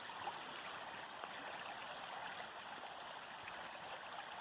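A small woodland stream running over a little fall, a steady rushing and gurgling of water.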